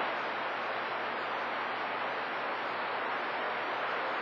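Steady hiss of open-squelch static from a CB radio receiver on channel 28 (27.285 MHz), with no station coming through: band noise between skip transmissions. A faint low hum runs under it.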